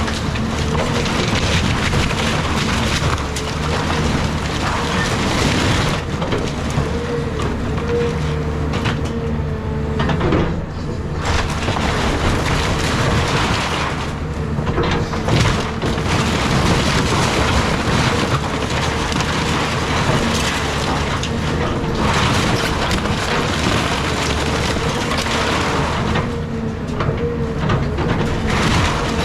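Caterpillar 323 excavator's diesel engine running under load with a steady whine, while wooden house framing cracks, crunches and splinters as it is torn apart.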